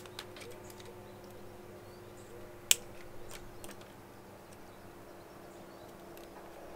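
Cutters snipping the ends off plastic cable ties: a sharp snap right at the start and a louder one nearly three seconds later, with a few fainter clicks of handling between.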